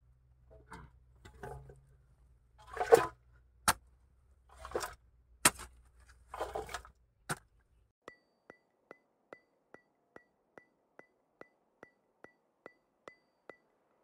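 Spade strokes cutting into dry, clumpy soil, about half a dozen scraping impacts, the loudest about three seconds in. From about halfway, an even ticking takes over, a little over two ticks a second.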